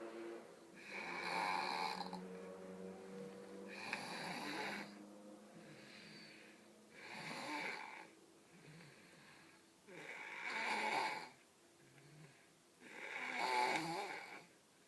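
Snoring in deep sleep, pretty loud: five rasping snores about three seconds apart, with quieter breathing between them.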